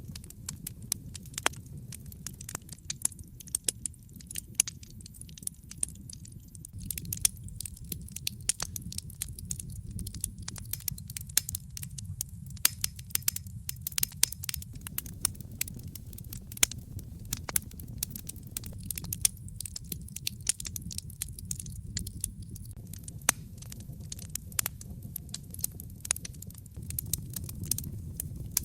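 Wood fire burning in a fireplace: a steady low rumble of flames with constant irregular crackles and sharp pops.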